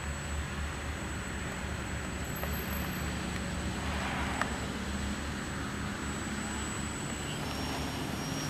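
Steady outdoor background noise, with a car passing about four seconds in. Near the end, the ParkZone F4U Corsair's electric motor and propeller throttle up with a high whine as the model starts its takeoff roll.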